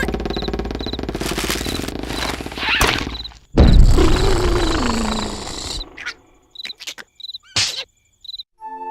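Cartoon snoring: a loud rattling snore, then about three and a half seconds in a louder breath whose tone slides down in pitch, over crickets chirping about twice a second. A few clicks follow, and music comes in near the end.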